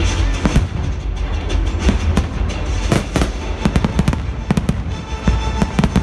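Aerial fireworks shells bursting in a dense barrage: many sharp bangs and crackles in quick succession over a continuous low rumble.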